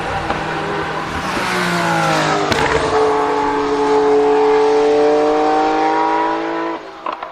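A car engine accelerating hard, its pitch climbing to a brief break about two and a half seconds in, then holding a high, slowly rising note before falling away sharply near the end.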